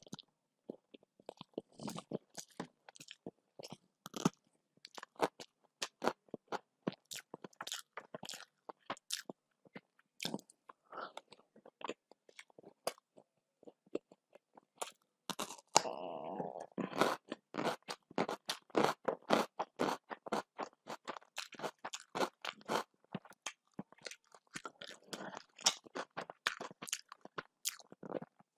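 A person chewing crunchy food with the mouth: a steady run of crisp crunches and wet mouth clicks, densest about halfway through.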